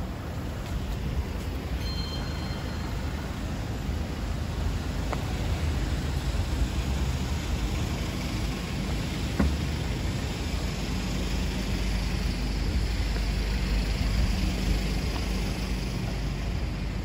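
Street traffic noise: a steady low rumble of cars and other vehicles on an adjacent road, with a faint brief high beep about two seconds in.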